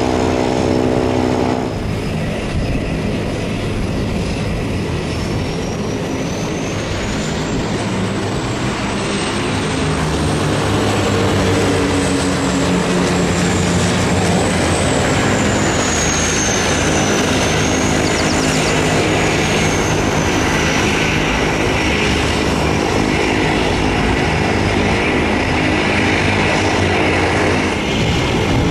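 Turboprop aircraft engines: first a Cessna Caravan's propeller buzzing as it rolls on the runway, then, from about two seconds in, a DHC-6 Twin Otter's turboprops on approach with a high turbine whistle that rises and falls in pitch. Near the end the sound changes as a business jet comes in to touch down.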